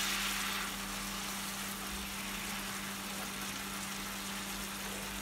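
Onion-and-tomato curry sauce sizzling and simmering steadily in a frying pan on a gas hob, just thinned with boiled kettle water. The sizzle is a little brighter at first, then settles to an even hiss over a faint low hum.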